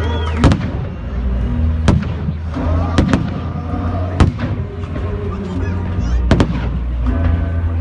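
Aerial fireworks bursting: a string of about seven sharp bangs, a second or two apart with two close pairs, over steady background music.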